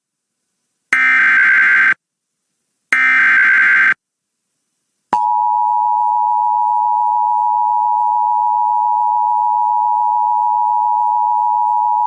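Emergency Alert System SAME header: two one-second bursts of warbling digital data tones, a second apart. About a second after the second burst, the EAS two-tone attention signal starts and holds steady, marking the opening of an alert.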